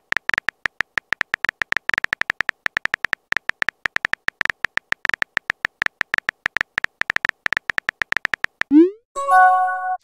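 Keyboard-tap sound effects of a texting-story app, rapid clicks several a second as a message is typed. Near the end a rising swoop and a short chime of steady tones sound as the message is sent.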